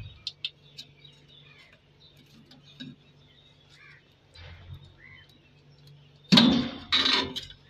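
Stainless-steel front panel of a gas fryer being pulled off, with a few small metal clicks, then a loud metallic clatter about six seconds in as the sheet-metal panel comes free and is set down.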